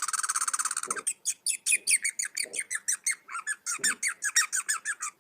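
Squirrel alarm call. A rapid, high chattering trill for about the first second, then a long run of quick, high chirps, each falling in pitch, about five a second.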